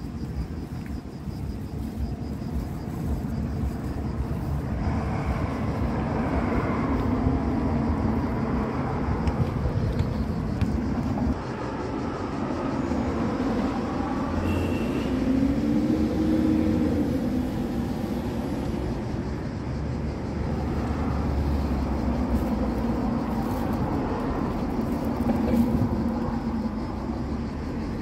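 Road traffic: a steady low rumble of passing vehicles, with engine tones swelling and fading between about five and twenty seconds in.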